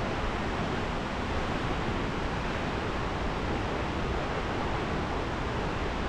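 Steady rushing of Nachi Falls, the constant roar of falling water heard from the path close below the falls.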